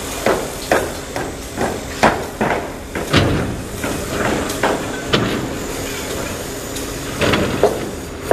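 Sumitomo SH480 hydraulic excavator working: its engine runs steadily under a string of irregular, sharp metallic clanks and knocks, roughly one every half second to a second.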